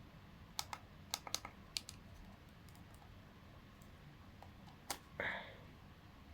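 Small sharp clicks of hands working bench test equipment, about six in quick succession in the first two seconds, then one more near the end followed by a brief scraping rasp.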